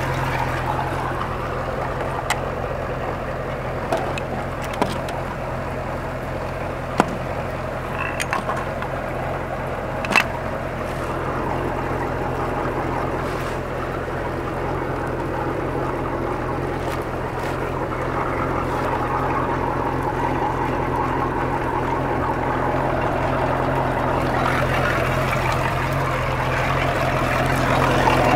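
Boat's sterndrive engine idling steadily on a test run, its cooling water fed by a garden hose and splashing out of the outdrive onto the pavement. The engine grows louder near the end as it is approached.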